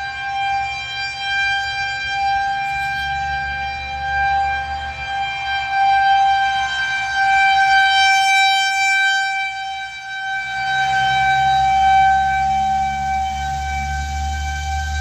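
Federal Signal 2001-130 outdoor warning siren sounding a tornado warning: one steady, unchanging tone that swells and fades in loudness over several seconds.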